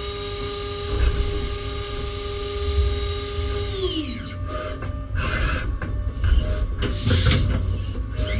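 CNC machining centre spindle running with a steady high whine, then winding down, its pitch falling, about four seconds in. Bursts of hiss and clatter follow. Near the end the spindle spins up again with a rising whine.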